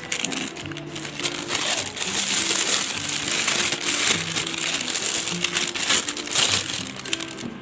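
Clear plastic piping bag crinkling and rustling as it is handled and opened, with soft background music underneath.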